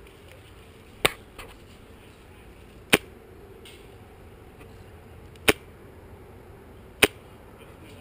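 Airsoft rifle built on a VFC M27 body firing four single shots, each a short sharp crack, the gaps uneven at about two, two and a half and one and a half seconds. A fainter click follows shortly after the first shot.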